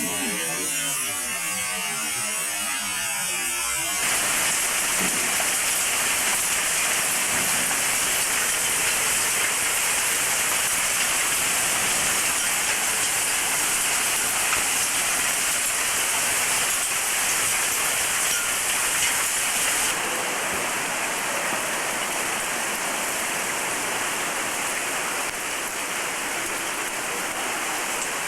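Torrential typhoon rain pouring down in a steady, dense hiss. It gets louder about four seconds in and eases slightly around twenty seconds.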